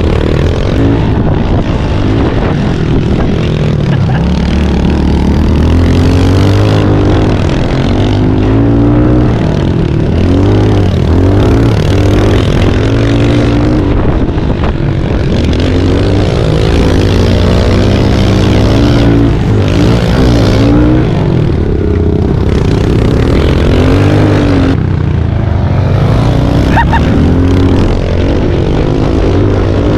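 Pit bike engines revving hard, their pitch rising and falling again and again as the throttle is opened and closed.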